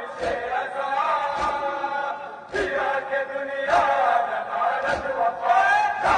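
A large crowd of mourners chanting a noha together, with heavy chest-beating (matam) strikes landing in unison about once a second.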